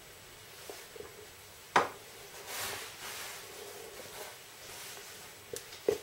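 Faint room noise with one sharp click a little under two seconds in and two lighter clicks near the end.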